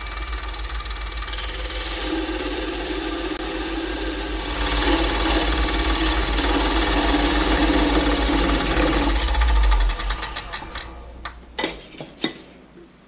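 Midi wood lathe running with a parting tool cutting into the spinning mesquite, parting off the lid: a steady motor hum under a hissing cut that grows louder about halfway through. About ten seconds in the cutting stops and the lathe winds down, followed by a few sharp clicks.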